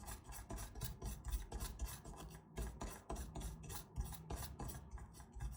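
Brisk back-and-forth scrubbing of the remote key's circuit board while it is cleaned with alcohol, about four short rasping strokes a second.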